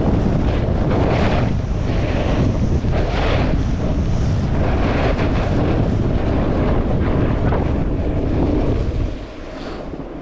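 Wind buffeting a GoPro's microphone: a heavy, rough rumble with surges of rushing noise, dropping away sharply about nine seconds in.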